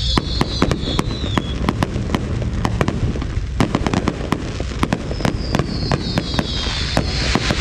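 Aerial fireworks display: a rapid run of bangs and pops, several a second. A high hiss fades out about a second and a half in and builds again near the end.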